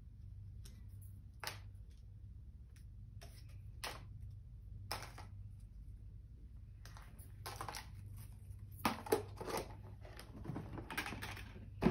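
Scattered rustles and clicks of hands handling a small rubber balloon toy with card propellers and a clear plastic box, more frequent in the second half, over a low steady hum.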